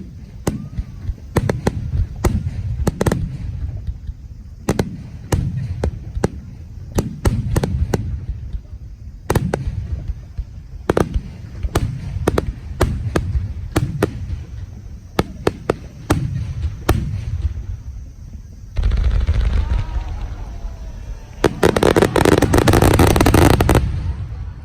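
Aerial fireworks shells bursting one after another, sharp bangs coming irregularly, several a second at times. Near the end come two dense, loud stretches of rapid overlapping bursts and crackle, each a few seconds long.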